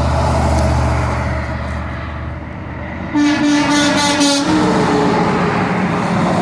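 A semi truck passes with a low engine rumble, then about three seconds in sounds a loud air-horn blast of about a second and a half.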